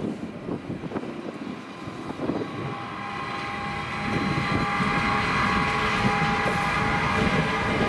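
Train approaching on the rails, growing louder from about four seconds in. Irregular low knocks come first, and a steady high-pitched whine joins about three seconds in.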